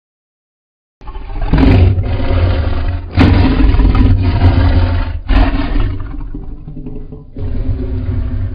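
Made-up dinosaur roar for an Acrocanthosaurus, built from processed lion roar recordings. It begins after about a second of silence and comes in deep, rough surges, with fresh starts about three and five seconds in and a last, weaker one near the end.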